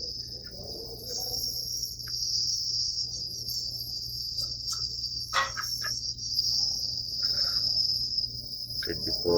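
Crickets trilling steadily and high-pitched, over a low steady hum, with a brief knock about five seconds in.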